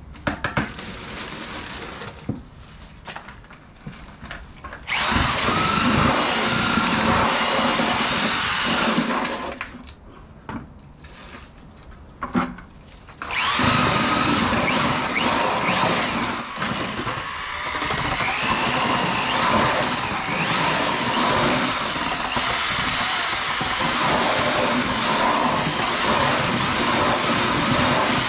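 Corded drill with a paddle mixer churning stucco patch mix in a plastic bucket. It runs in two spells, about four seconds from some five seconds in, then steadily from about thirteen seconds on, its pitch wavering as it works. Before and between the spells there are quieter knocks and handling sounds.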